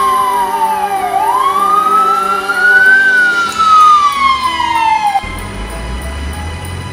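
FDNY ambulance siren wailing: a loud tone sweeping slowly down, up and down again. It cuts off suddenly about five seconds in.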